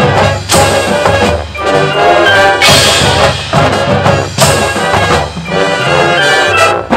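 High school marching band playing: the brass section (trumpets and trombones) sounds loud held chords with accented hits, backed by low brass and percussion.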